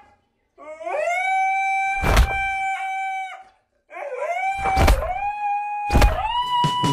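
A cartoon dog howling: two long howls, each rising at the start and then held on one pitch, the second ending a little higher. A few thumps land during the howls, one as a pillow hits it.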